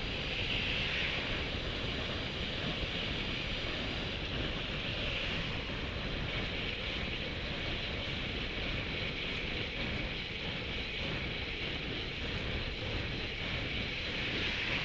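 Steady wind noise on the microphone of a road cyclist's camera, riding at about 40 km/h.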